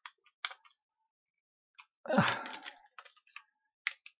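Small plastic clicks and taps from a wind-up torch being reassembled, a screwdriver working at its crank housing. About two seconds in there is one louder, longer handling knock.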